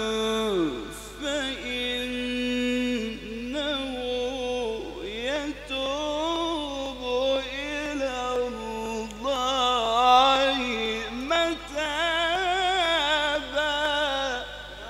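A man reciting the Quran in the melodic mujawwad style, drawing out long held notes that break into wavering ornamental runs.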